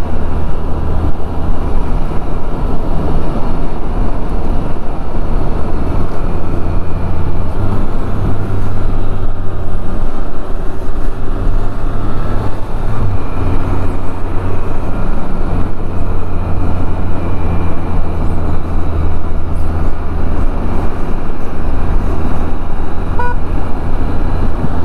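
Can-Am Spyder three-wheeled motorcycle riding at road speed: engine running steadily under a loud rush of wind over the microphone, the low engine note stepping up and down a few times.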